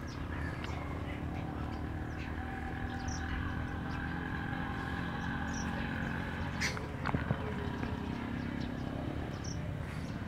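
Outdoor orchard ambience: a steady drone with a low rumble beneath it that fades near the end, a few short high bird chirps, and a couple of sharp clicks about two-thirds through.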